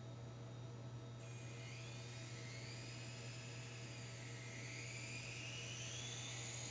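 S107G mini RC helicopter's small electric coaxial rotor motors starting about a second in, a high whine that glides up and down in pitch as the throttle changes. A steady low hum runs underneath.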